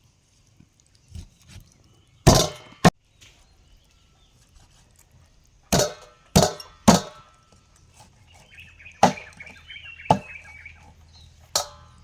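Knife chopping on a wooden cutting board: about eight sharp, separate chops at an uneven pace, some in quick pairs. A faint chirping runs under the later chops.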